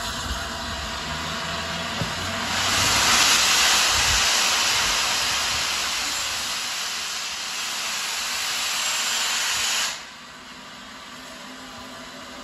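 A steam locomotive letting off steam: a loud, even hiss that swells about two seconds in, holds for several seconds, then cuts off suddenly, leaving a fainter hiss.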